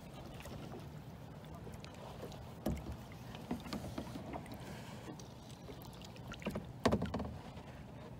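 Small water sounds and knocks around a plastic kayak on calm water, a few soft taps from about three seconds in and a sharper thump near seven seconds.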